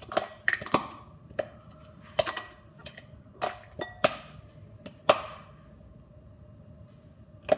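Frozen dimple fidget toy being pressed: its dimples snap through with a string of sharp, irregular pops, about a dozen in the first five seconds, then a pause and one more pop near the end.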